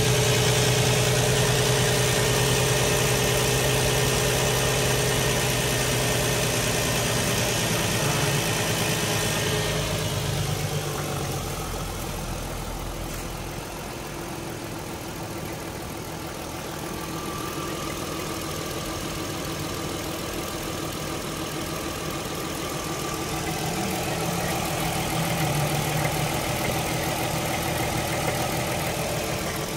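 Audi A3's 3.2-litre V6 engine idling steadily, with its PCV valve newly replaced. It is louder for the first ten seconds or so, then softer.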